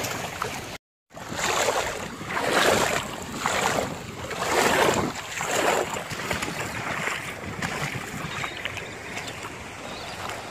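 Wind buffeting the microphone in gusts, roughly one a second, after a short break in the sound about a second in, then easing to a steadier rush of wind and small waves lapping at the water's edge.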